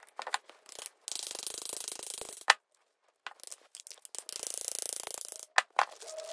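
Metal hand-tool work on a wheel hub: stretches of fast, even, rasping clicking, broken by a sharp loud knock about halfway through and two quicker knocks near the end, as a hammer drives a new bushing into the hub with a socket.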